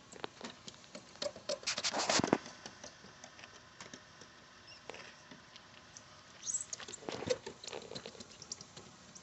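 Towel wiping and rubbing across a plastic car headlight lens, taking off the clarifying compound. It comes as quick scratchy strokes in two busier bursts, about two seconds in and again about seven seconds in, with light scuffs between.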